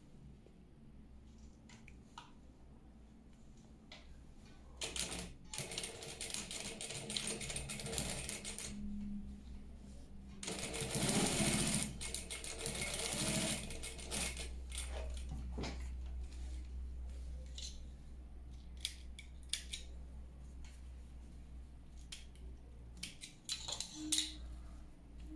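Industrial lockstitch sewing machine stitching two layers of fabric together in two runs, starting about five seconds in and again about ten seconds in, the second run louder. A steady low hum runs underneath, and scattered clicks come near the end as the work is handled.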